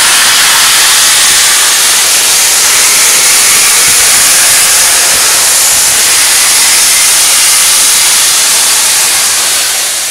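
Union Pacific Big Boy 4014, a 4-8-8-4 articulated steam locomotive, venting steam from around its cylinders: a loud, steady hiss that fades away near the end.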